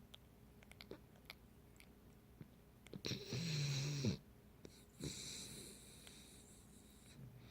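Pit bull puppy snoring in its sleep: a loud snore with a low buzzing tone in it about three seconds in, then a softer breath about a second later.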